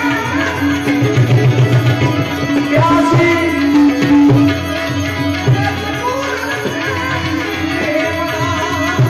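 Live Gujarati devotional folk music (santvani bhajan): harmonium melody with a steady tabla beat.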